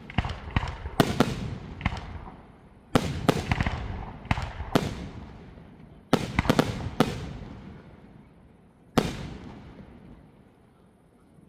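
Fireworks bursting: quick clusters of sharp bangs, each trailing off in a rolling echo, with one last single bang about nine seconds in before the echoes die away.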